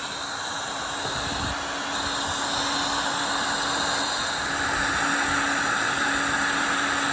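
Electric heat gun running steadily: its fan blowing with a steady hiss and a faint motor hum, heating a gummed-up carburetor to loosen a stuck part.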